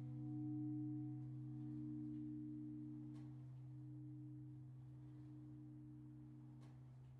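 Large bronze church bell's hum dying away after its last strike, a few low tones fading slowly as the bell swings to rest, with a couple of faint clicks.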